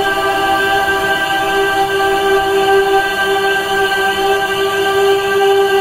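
Slow ambient music: a sustained drone held steadily on one note, with no beat.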